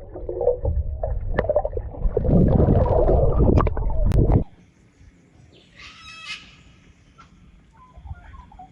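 Water splashing and sloshing close to the microphone in a swimming pool, with a few sharp knocks. It cuts off abruptly about four seconds in. What follows is a quieter outdoor background with one harsh bird call and a few short chirps near the end.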